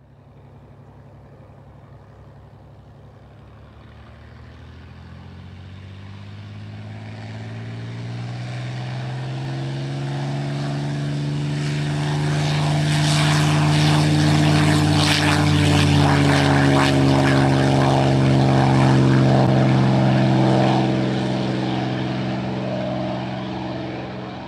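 Propeller airplane flying past: the drone of its engine grows louder over about a dozen seconds, peaks with a rushing noise, then fades.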